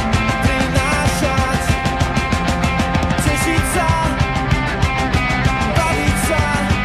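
Recorded rock song playing with drums, electric guitar and bass keeping a steady beat, and no vocals in this stretch.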